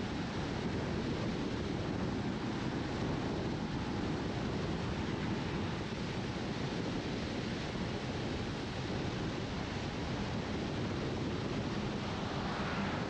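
Steady tyre rumble and wind noise of a car driving along an asphalt road, with a slight swell near the end as an oncoming lorry passes.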